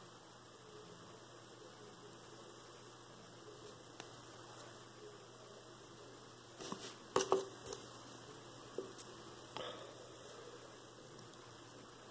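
Steady low electrical hum, with a short cluster of small clicks and rustles from hands handling tiny model parts and a glue tube a little over halfway through, followed by a couple of single clicks.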